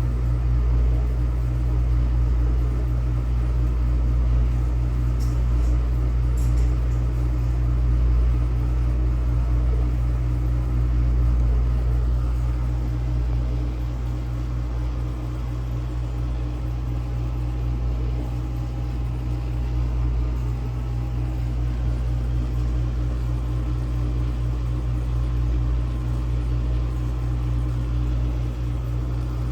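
Vintage dishwasher's pump motor running with a steady low hum. The water hitting the tub is not heard at full force, which the owner takes as a sign that the pump could be restricted.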